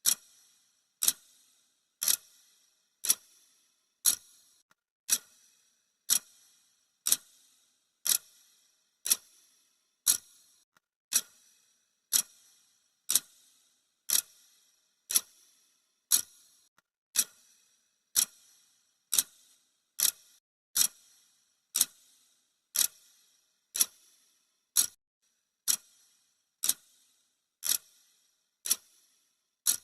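Clock ticking sound effect marking off the seconds of a countdown timer: one sharp, crisp tick each second, evenly spaced.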